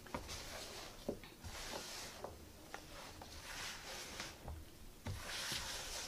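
Faint scraping and rubbing as a thick, crumbly bath-truffle mixture of baking soda, butters and oils is mixed in a bowl: several soft scraping strokes with light taps between them.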